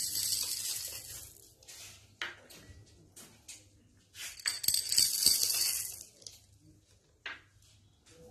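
Small beads poured from glass bowls clattering onto a wooden tabletop: a rattling rush of gold beads at the start, scattered ticks as they bounce and roll, then a second rush about four seconds in as a bowl of larger coloured beads is tipped out, and a few last ticks near the end.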